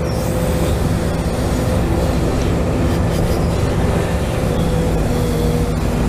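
Hydraulic pump of a custom-built RC excavator running with a steady hum of several held tones as the boom and bucket move. The pitch shifts a little about five seconds in.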